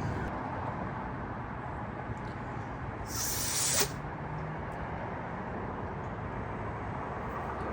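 A short hissing spray burst of just under a second, about three seconds in, while a carburetor jet is being cleaned, over a steady low background noise.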